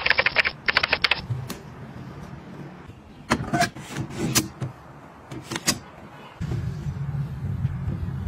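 A hard-shell suitcase's telescoping trolley handle being pulled up, ratcheting in two quick bursts of clicks, followed by a few separate clicks and knocks from the handle. From about six seconds in, a low steady rumble of its double-bearing spinner wheels rolling across carpet.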